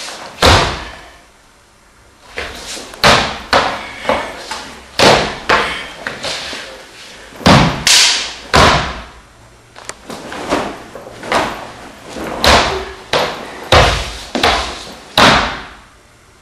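About twenty sharp swishing strikes from a tonfa being swung in fast combinations, coming in quick pairs and triples with short pauses between.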